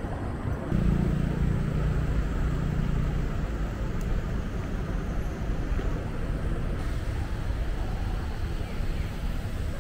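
Road traffic: a steady low rumble of motor vehicles, louder from about a second in, with a low engine hum for the next few seconds.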